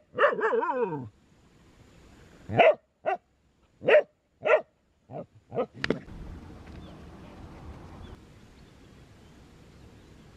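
Dog barking at a small crocodile: one long drawn-out bark that falls in pitch, then a string of about seven short, sharp barks over the next five seconds. The barking stops about six seconds in, leaving only faint outdoor background noise.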